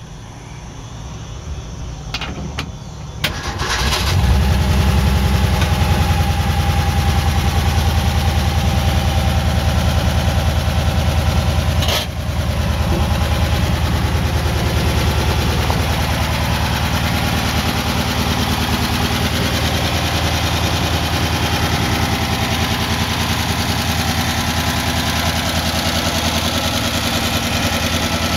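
1962 Ford Econoline pickup's inline-six engine starting. It catches about four seconds in and settles into a steady idle. There is a sharp click and a slight drop in level about twelve seconds in.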